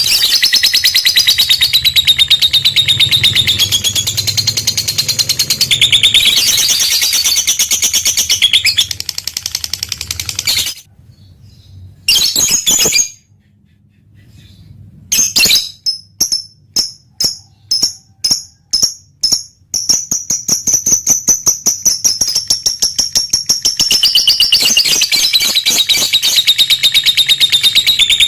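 Lovebird singing its long, rapid chattering trill (ngekek), high-pitched and unbroken for several seconds. About halfway through it stops, a run of separate short calls follows at about two a second, and then the fast continuous trill starts again.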